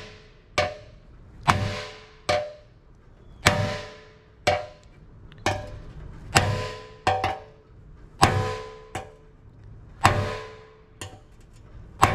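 Auto body hammer striking the inside of a dented Harley rear fender, sheet metal backed against a table, beating out a dent. About a dozen sharp metallic blows, roughly one a second, each with a brief ring.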